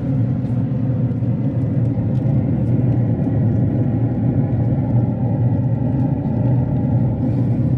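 A steady low mechanical rumble with a hum in it.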